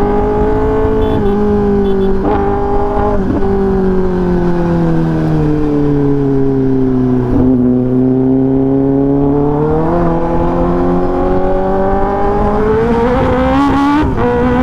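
2024 Kawasaki Ninja ZX10R's inline-four running through an SC Project titanium full-system exhaust under way, loud, its note easing slowly down for several seconds and then climbing again from about ten seconds in.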